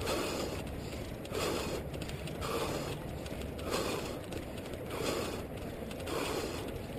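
Muffled, rhythmic thumping from a head-mounted GoPro Hero 2 camera jolting with each stride of the running wearer, a little under two beats a second over a steady low rumble.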